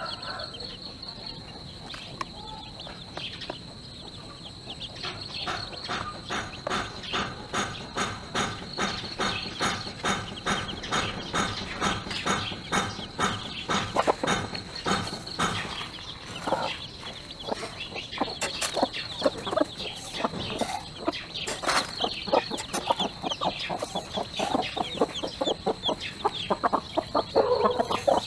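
A mother hen clucking to her newly hatched chicks: quick, even clucks, about three a second, starting a few seconds in, over the chicks' high, thin peeping.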